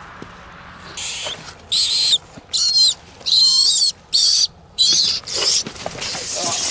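Rat squealing in distress as it is caught by hand: about six short, shrill squeals in quick succession, each wavering in pitch.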